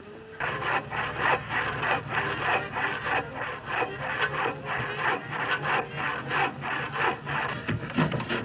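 Rhythmic rasping strokes of wood being rubbed down by hand, about three strokes a second, with a steady low hum beneath.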